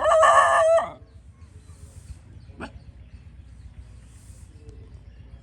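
A farm animal's loud drawn-out call that breaks off just under a second in, followed by one short sharp sound about two and a half seconds in.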